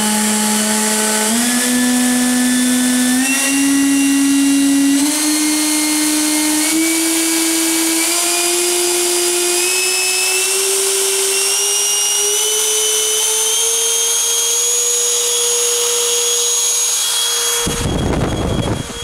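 90 mm electric ducted fan with a seven-blade impeller, in a 1.6 m RC MiG-15 jet, spooling up on a bench run. Its whine climbs in steps as the throttle is advanced and then holds steady at high speed. Near the end there is a brief rush of noise.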